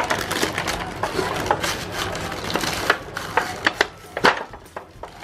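Clear plastic wrapping crinkling and crackling as it is handled around a boxed printing calculator, with many sharp crackles. Busy for the first three seconds, then sparser, scattered crackles.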